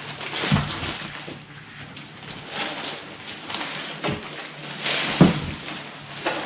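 Plastic packaging crinkling and rustling, with scattered knocks of items being handled and one sharp knock about five seconds in.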